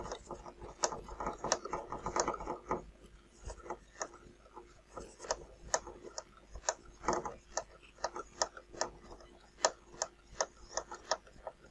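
Hard 3D-printed plastic parts clicking, tapping and rubbing as the wing is fitted and screwed onto the fuselage of a model plane. Irregular sharp clicks throughout, with scraping mostly in the first three seconds.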